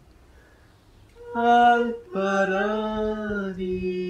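Unaccompanied voices singing long held notes. The first note starts about a second and a half in; after a short break the next note sags slowly in pitch and settles into a lower note that is still held at the end.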